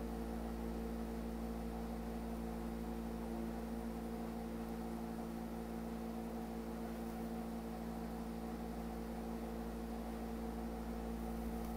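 Steady low electrical hum with faint hiss, unchanging throughout: the background noise of the recording, with no other sound.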